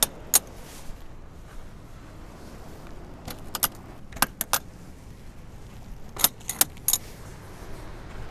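Metal latches on a Four Wheel Campers Project M pop-top camper being unsnapped by hand, giving sharp metallic clicks in three groups: two at the start, four or five around the middle, and three more a little later. The latches are undone so that the pop-top roof can be raised.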